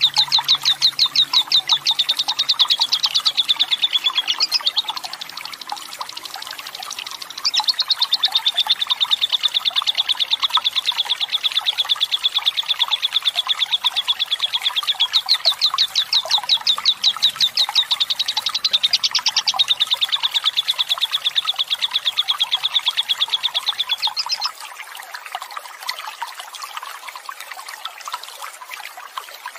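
A lovebird's long, rapid trilling chatter ('ngekek panjang'), a fast run of high chattering notes held for many seconds. It breaks off briefly about five seconds in and stops near the end, leaving running water trickling underneath.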